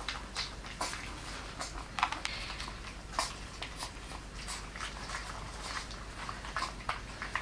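Smooth-haired dachshund puppies lapping and smacking at a soft porridge mash in ceramic cups: a steady string of small wet clicks and smacks as they eat.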